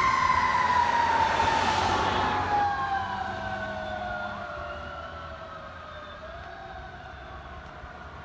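Fire engine siren wailing, its pitch sliding slowly down as it fades into the distance while the truck drives away.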